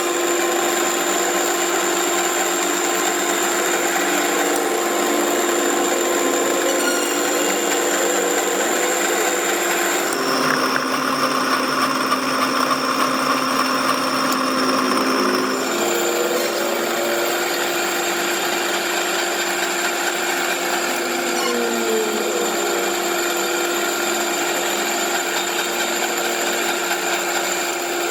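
An electric power tool running steadily with a constant whine. For about five seconds in the middle its pitch is lower and a rougher working noise comes in, then the higher whine returns.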